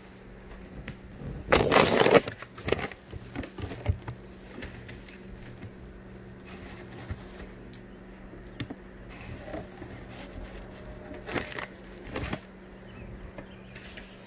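Handling noises of hands at work: scrapes, rustles and scattered clicks, with two louder rasping noises lasting under a second, about two seconds in and again near the end, over a faint steady hum.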